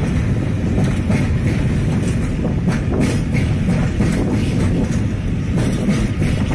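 Intermodal container freight train's flat wagons rolling past: a loud, steady rumble of wheels on rail, broken by repeated clacks as the wheelsets run over rail joints.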